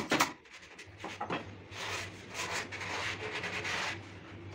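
Hand sanding on a wooden subwoofer cabinet: sandpaper rubbing in uneven strokes. There is a louder scrape right at the start, a short stroke just after a second, and steady rubbing from about two seconds in until near the end.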